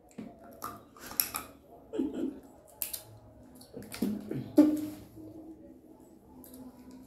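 People eating whole cooked crab by hand: scattered sharp cracks and clicks of crab shell being bitten and picked apart, with a few short murmured hums in between.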